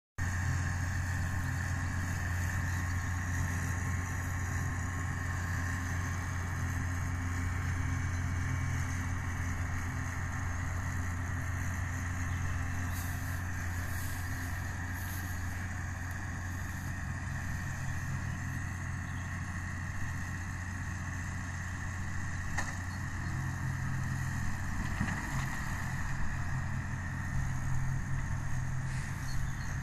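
Massey Ferguson 6465 tractor's diesel engine running steadily as it pulls and drives a Vicon RF 2235 round baler baling silage, growing somewhat louder in the last few seconds.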